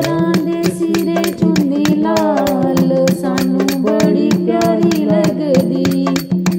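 Instrumental interlude of a devotional Shiv bhajan: a melody of held notes stepping up and down over a fast, steady percussion beat.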